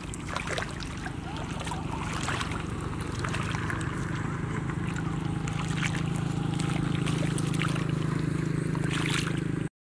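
Hands splashing and squelching in shallow muddy water, with scattered short splashes, over a steady low hum that grows slightly louder. Everything cuts off suddenly near the end.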